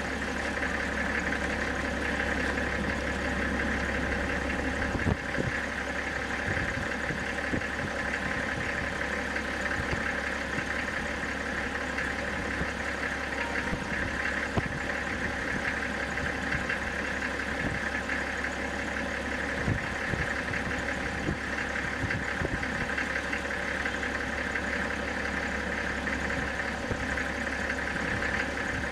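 A steady mechanical hum with several fixed tones that does not change throughout, with a few faint clicks here and there.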